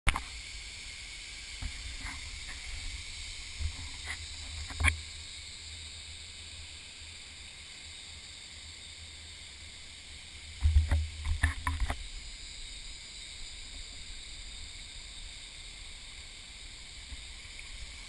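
Shallow stream running over rock slabs, a steady hiss of flowing water. A few sharp knocks come in the first five seconds, and a louder cluster of thumps and low rumbles comes a little past the middle.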